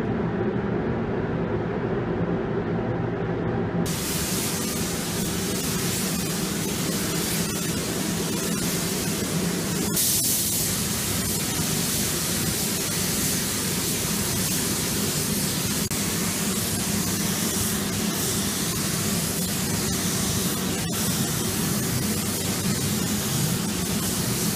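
Gravity-feed paint spray gun hissing steadily as it lays a coat of paint, over a steady low hum. The hiss becomes much brighter suddenly about four seconds in.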